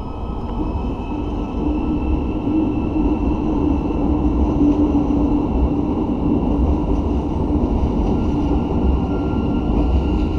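Euskotren UT200 electric train standing still with its equipment running: a steady hum over a low, even rumble.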